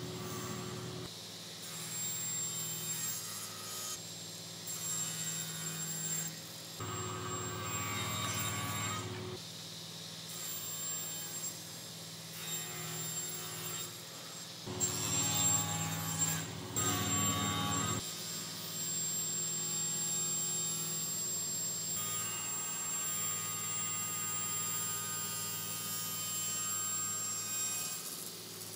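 Sliding table panel saw running steadily, its blade cutting through wooden boards in several passes, louder about seven and fifteen seconds in.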